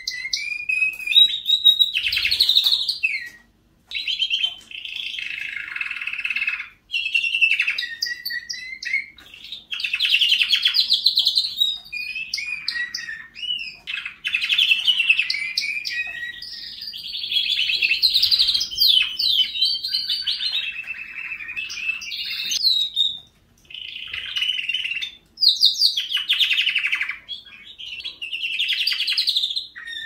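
Canary singing a long, continuous song of fast rolling trills and warbled phrases, broken by a few short pauses.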